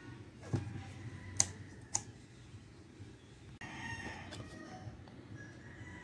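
Three sharp metallic clicks in the first two seconds, a screwdriver working against a chainsaw's bar and chain during chain tensioning. Then a drawn-out animal call in the background about four seconds in, with a fainter one near the end.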